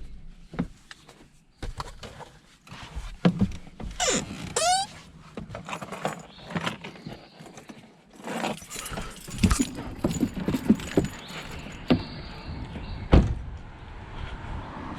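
A car engine shuts off at the start, followed by scattered clicks, knocks and rattles around the parked car. There is a short falling squeal about four seconds in and a sharp knock near the end.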